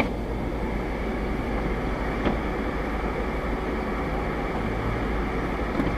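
Steady low rumble of a vehicle in motion, with one faint tick about two seconds in.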